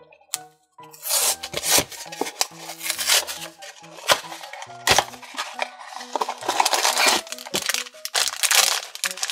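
Cardboard blind box being torn open by hand, then a black foil bag crinkling and rustling as it is pulled out and handled, with background music playing. The crackling starts about a second in.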